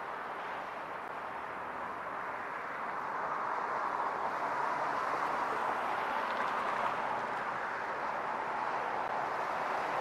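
Road traffic on a multi-lane road: a steady rush of tyre and engine noise that swells a little a few seconds in as cars go by.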